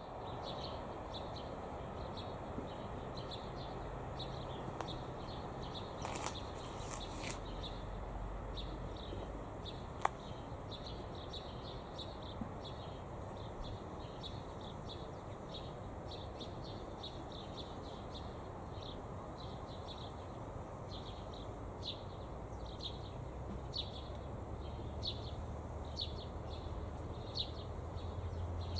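Outdoor ambience over a steady background hiss, with short high-pitched chirps repeating about once or twice a second. There is one sharp click about ten seconds in, and a low hum grows louder toward the end.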